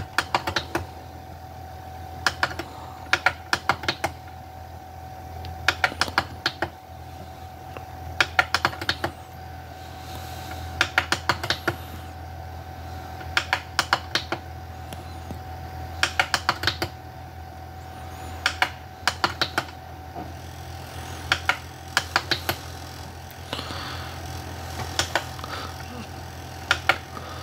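Buttons on a remote control clicking in quick runs of several presses every two to three seconds, over a steady low hum.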